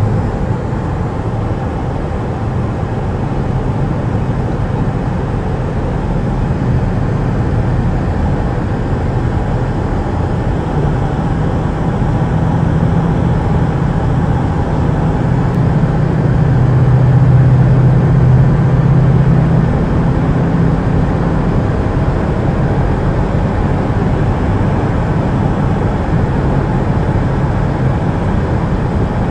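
Steady road and engine noise inside the cabin of a Ford Mustang cruising at highway speed. The low rumble swells for a few seconds a little past the middle.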